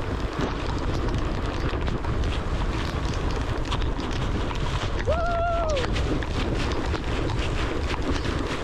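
Wind rushing hard over the microphone during a fast board slide down loose volcanic gravel, with gritty scraping underneath. A short whooping shout comes about five seconds in.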